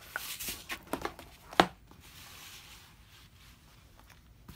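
Handling of a quilted fabric panel backed with adding-machine tape paper as it is lifted and moved on a cutting mat: a few light knocks and paper-and-fabric rustles, with one sharp clack about a second and a half in, then quieter.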